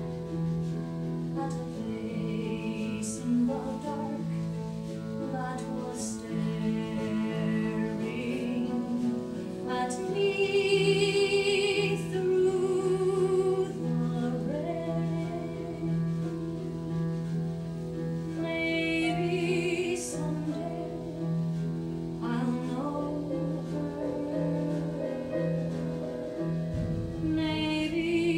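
Live musical-theatre song: a woman singing with vibrato over instrumental accompaniment, with a steady low held note that pulses on and off beneath.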